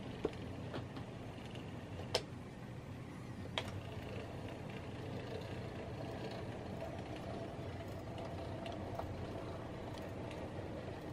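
Brass On2 model 2-6-2 steam locomotive running slowly on curved track: a steady hum from its motor and gearing, with the rumble of its wheels on the rails. Three sharp clicks come in the first four seconds.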